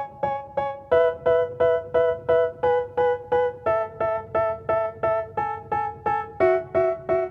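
Background music with no vocals: a keyboard plays evenly repeated chords, about three a second, moving to a new chord every few seconds.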